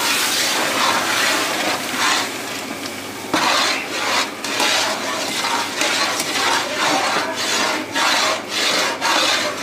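Roasted semolina and hot sugar syrup being stirred together with a metal utensil in a large aluminium pot for suji halwa: a wet scraping and sloshing that falls into repeated strokes from about three seconds in.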